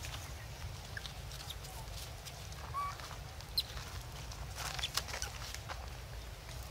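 Rustling and scattered clicks over a steady low rumble, with two brief high chirps from an animal near the middle.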